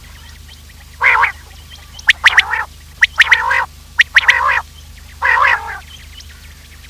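Recorded quail calls of the kind played as a hunting lure: five harsh calls about a second apart, several opening with sharp high clicks, over a faint steady low hum.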